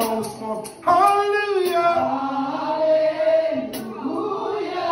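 A man singing a gospel worship song into a microphone, holding one long wavering note about a second in.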